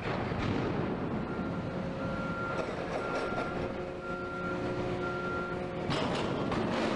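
Heavy container-port machinery running: a steady rumble and noise with a faint whine that comes and goes. A short, louder burst of noise about six seconds in.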